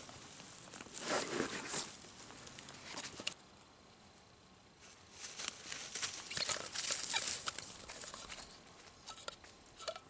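Rustling of dry grass and a wool blanket as a seated person shifts about, then from about five seconds in a dog's steps rustling and crunching through dry grass and patchy snow.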